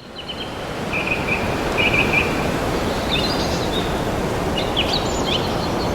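Birds chirping: short trills and quick up-and-down calls come every second or so over a steady rushing background noise that fades in at the start.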